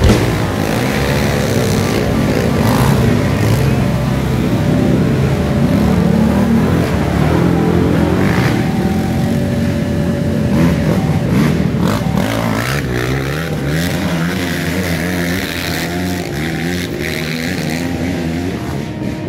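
Racing ATV (quad) engines revving through mud, the engine note rising and falling continuously as riders work the throttle, with more than one machine at a time.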